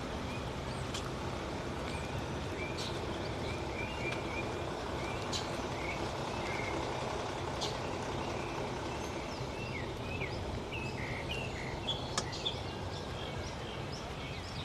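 Steady low vehicle-engine rumble with many short bird chirps over it, busier near the end, and a few sharp ticks.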